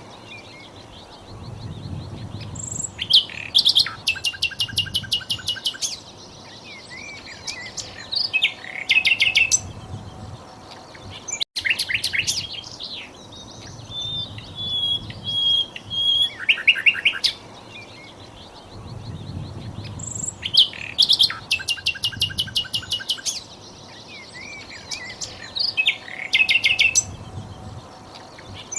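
Sikatan londo flycatcher song: bursts of fast, high trills of rapid notes alternating with short whistled phrases, the same sequence repeating as a looped recording.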